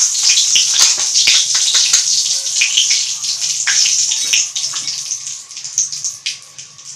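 Hot oil sizzling and crackling in a kadhai just after turmeric is dropped in, loud at first and dying down over the next few seconds.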